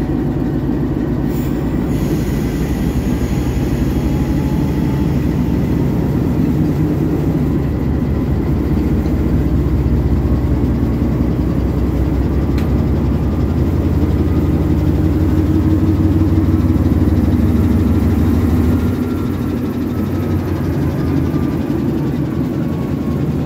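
Diesel locomotive engine idling close by, a steady low rumble that grows a little louder through the middle and eases off about two-thirds of the way through.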